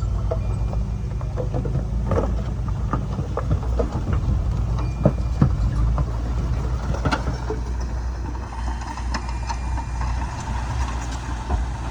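Bulldozer engine running steadily under load, with repeated sharp clanks and clicks from the machine as it works, more of them in the first half.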